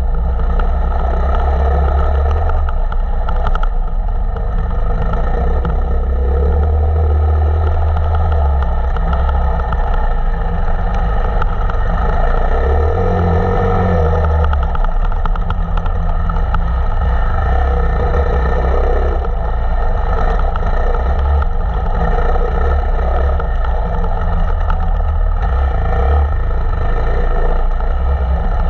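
KTM 525 EXC single-cylinder four-stroke enduro motorcycle engine running steadily while riding, its low note swelling louder a few times as the throttle is worked.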